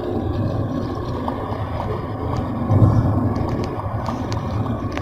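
Road noise inside a moving car's cabin: a steady low rumble of tyres and engine that swells briefly about three seconds in, with a few light clicks.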